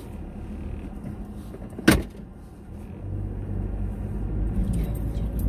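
Car heard from inside the cabin, moving at low speed with a low rumble that grows louder from about three seconds in as it pulls away. One sharp knock, the loudest sound, comes just before two seconds in.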